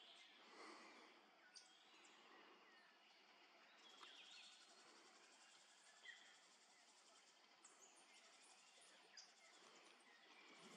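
Faint forest ambience: scattered short high chirps and whistles of birds, with a fast buzzing insect trill through the middle.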